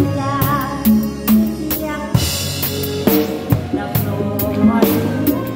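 Drum kit played live with a band: quick snare, rimshot and bass drum hits, with a cymbal crash about two seconds in, over the band's bass and melody lines.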